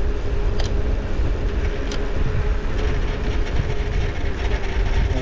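Wind rushing over the microphone and tyre noise from a bicycle descending fast on a paved road, a loud steady rumble with a faint steady hum and a couple of light clicks.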